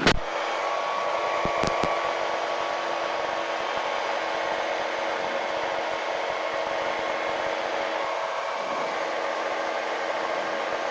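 Steady drone of a light airplane's engine and cockpit noise in flight, with a few faint tones running through it. A few short clicks sound near the start.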